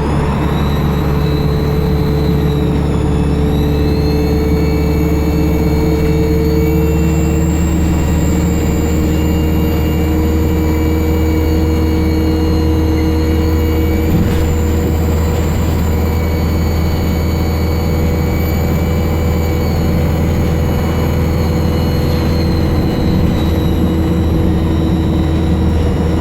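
ADL Enviro 200 (E20D) bus diesel engine running under way, with a loud, high turbocharger whistle over the engine's low drone. The whistle dips in pitch about three seconds in, then climbs and holds steady.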